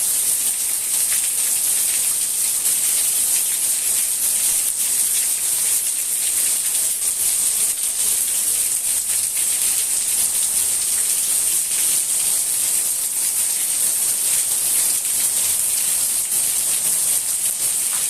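Steady rain falling: a dense, even hiss dotted with many small drop ticks.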